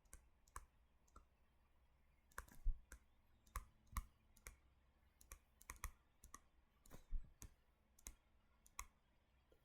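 Faint, irregular clicks and taps of a stylus on a tablet screen during handwriting, a few a second, coming thicker from about two seconds in.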